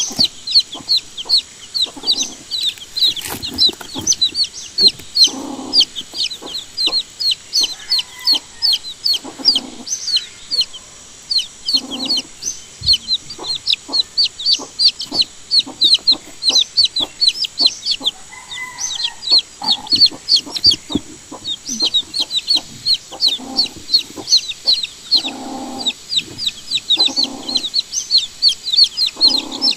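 Young chicks peeping constantly, a rapid stream of short, high, downward-sliding peeps, several a second. Occasional soft knocks and rustles underneath.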